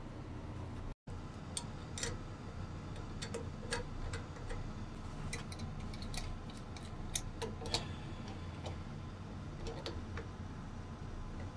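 Scattered light metallic clicks and taps of a wrench and fittings being worked by hand, as a hose and pressure gauge are connected to the tank's compressed-air engine-start system.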